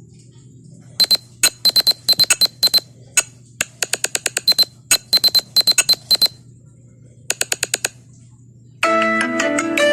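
Phone ringtones playing: a rhythmic pattern of short, sharp, high electronic beeps starting about a second in, then a quick run of five beeps. Near the end a different, melodic bell-like ringtone begins.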